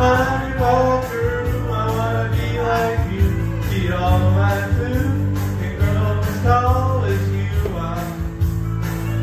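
A man singing karaoke into a microphone over a recorded backing track with guitar, amplified through the PA.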